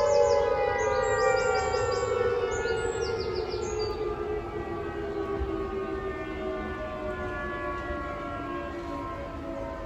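Large outdoor electromechanical warning siren winding down at the end of a signal, its tone falling slowly and steadily in pitch and fading as the rotor coasts to a stop.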